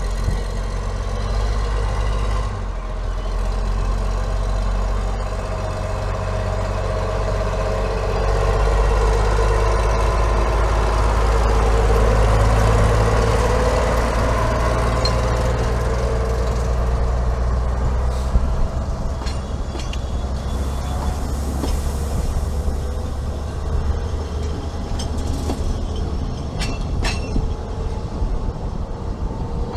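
Narrow-gauge diesel locomotive departing with a passenger train, its engine running with a steady deep drone that is loudest as it passes close by about halfway through. After that the engine fades as the coaches roll past, with a run of sharp clicks from the wheels near the end.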